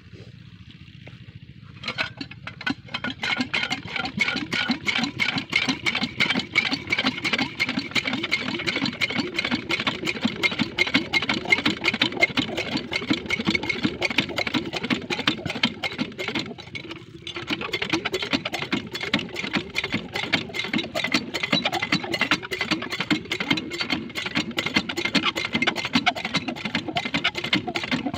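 Small Chinese single-cylinder diesel engine driving a well water pump. It comes in suddenly about two seconds in and runs with a fast, even knocking beat, with one brief dip in level about two-thirds of the way through.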